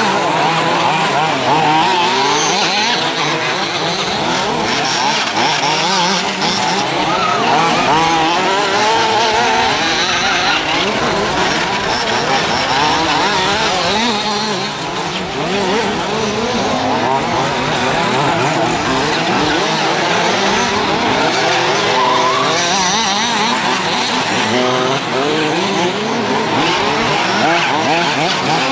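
Several large-scale (1:5) off-road RC buggies' small two-stroke petrol engines racing together. Each one revs up and down as it brakes and accelerates, and their buzzing pitches weave over one another.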